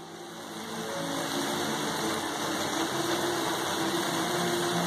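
A steady low machine hum with a few faint steady tones, growing louder over the first second or two.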